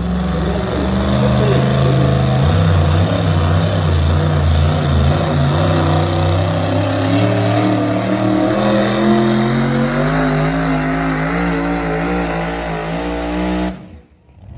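Pulling truck's engine running hard at high revs as it drags a weight-transfer sled. The engine note dips about three seconds in, then climbs slowly, and breaks off abruptly near the end.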